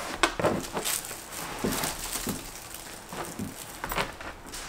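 Plastic wrapping crinkling and rustling in irregular bursts as it is pulled off a rolled rug.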